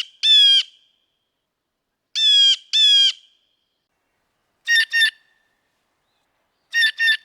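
Blue jay calling, its calls coming in pairs about two seconds apart, four pairs in all, with the later pairs shorter.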